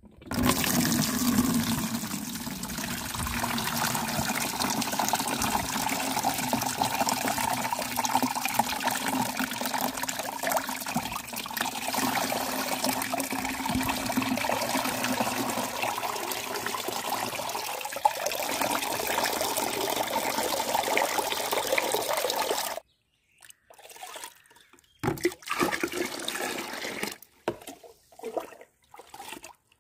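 Liquid beetroot mixture pouring steadily into a plastic bucket, filling it with continuous splashing for about 23 seconds before stopping abruptly. After that come a few short, separate splashes of water being handled in a second bucket.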